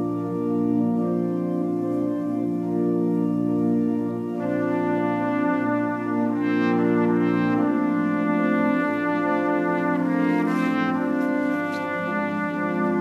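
Trumpet playing a slow melody over sustained organ chords.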